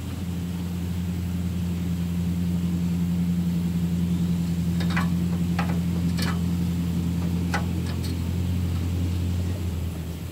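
A steady low drone from an unseen motor, fading out near the end, with a few light clicks in the middle.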